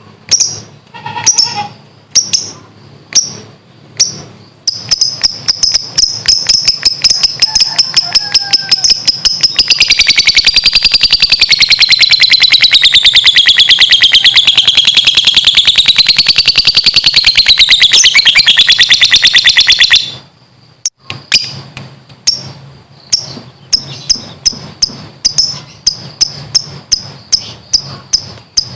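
Lovebird's 'ngekek': a long, fast chattering trill. A few separate shrill chirps open it, then about five seconds in a rapid rattling run starts and builds into a loud continuous trill, wavering in pitch. It cuts off suddenly about twenty seconds in, and rapid chirping picks up again a second later.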